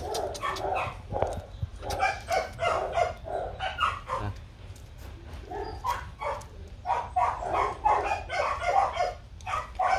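Hmong bobtail dog making a quick run of short whining, grumbling vocal sounds, several a second, protesting while its muzzle is held and its lips lifted for a tooth check.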